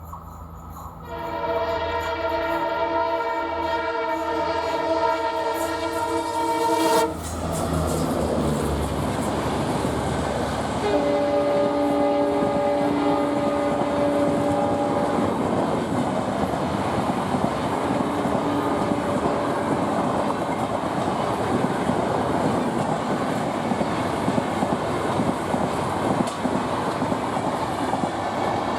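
EMD WDP-4 diesel locomotive's multi-note horn sounding one long blast for about six seconds, then the locomotive passing at speed about seven seconds in. A second, lower-pitched horn blast follows from about eleven to fifteen seconds. Then the coaches run past with wheels clattering over the rail joints.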